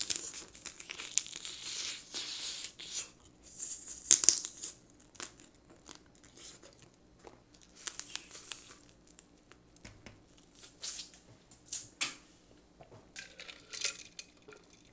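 Close-miked eating of steamed blue crab: shell cracking and meat being sucked and chewed in irregular short bursts, the loudest about four seconds in.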